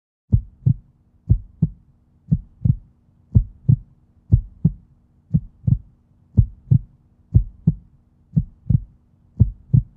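Heartbeat-like double thumps, a lub-dub pair about once a second, over a faint steady hum, starting after a brief silence.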